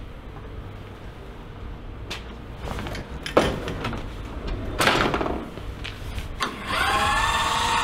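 Knocks and clatter of equipment being handled in the back of a van, over a low steady hum. About seven seconds in, a machine spins up and runs steadily with a whine.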